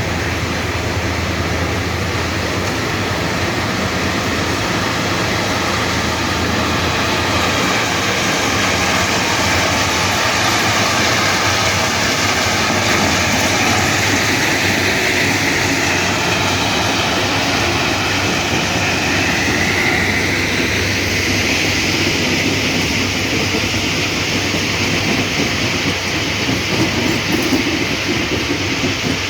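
Sri Lanka Railways Class W3 diesel locomotive hauling a ballast train: a steady engine drone under the noise of wheels running on the rails. A higher whine swells in the middle and fades.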